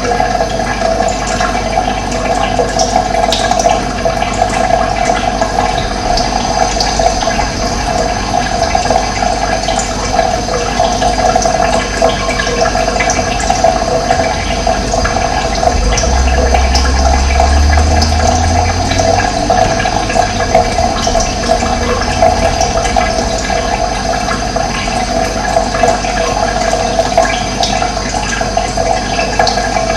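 Running water rushing and splashing steadily, with a low rumble that swells for a few seconds about midway.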